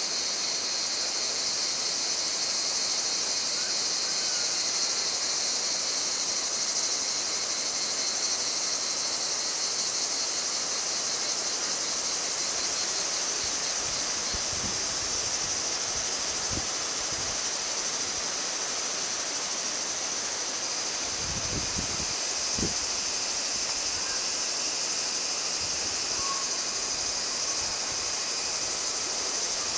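Steady high-pitched chorus of insects, with a few brief low thumps of wind on the microphone in the second half.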